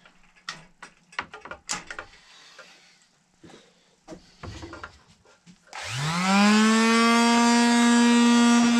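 Scattered knocks and clicks of handling, then about six seconds in an electric palm sander switches on, its motor whine rising quickly to a steady pitch and running on.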